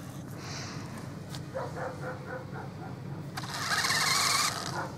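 Radio-controlled toy monster truck's electric motor whirring for about a second near the end, its wheels spinning on ice where the truck is stuck and can go neither forward nor back.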